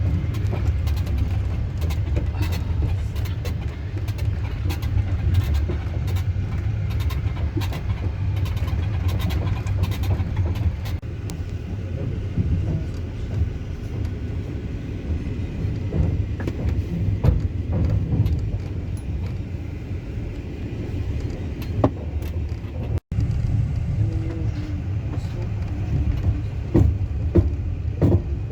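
Passenger train running, heard from inside the carriage: a steady low rumble with the clatter and clicks of the wheels over the rails. The sound cuts out for an instant about five seconds before the end.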